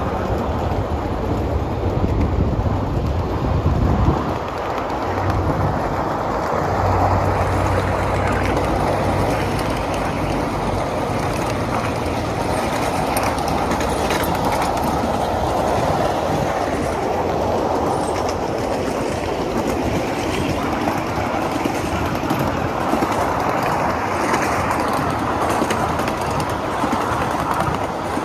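Riding aboard a 7.5-inch gauge miniature train as it rolls along the track: a steady rumble of small wheels on the rails with light clicking. A deeper low rumble in the first four seconds drops away after that.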